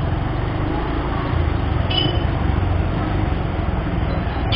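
Bajaj Pulsar 150's air-cooled single-cylinder engine running steadily at crawling speed, heard as a low rumble. A short high-pitched beep sounds about two seconds in.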